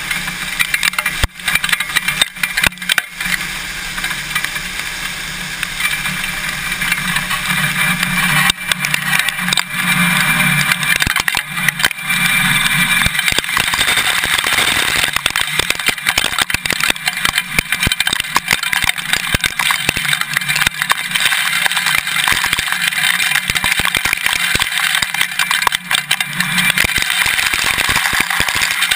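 Shelled corn pouring from a Claas combine's unloading auger into a grain cart, a continuous rushing hiss with a dense patter of kernels striking the camera. A low engine hum runs underneath and is strongest in the first half.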